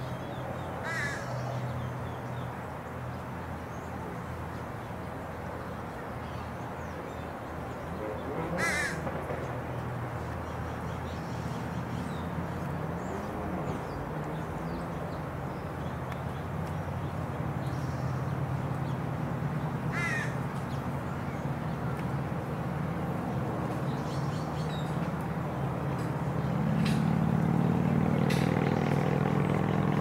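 Bald eagle calling: three short bursts of quick, high, chirping notes, several seconds apart. A steady low rumble runs underneath and grows louder near the end.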